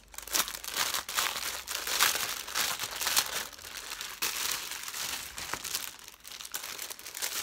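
Clear plastic wrapping crinkling and crackling as hands pull it off a flat object, in dense irregular crackles, loudest about two seconds in.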